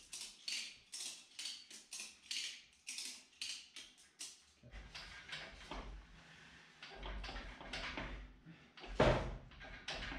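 Handling noises from a transmission hung on lifting straps being worked onto the engine's bell housing. First a run of short scraping, clicking strokes, two or three a second; then low rumbling and a sharp knock near the end.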